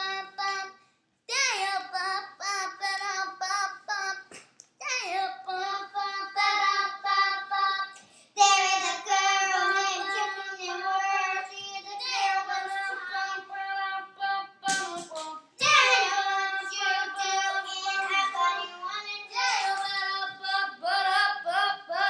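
A child singing a melody in phrases, holding long notes with short breaks between lines. Two sharp knocks come about two-thirds of the way through.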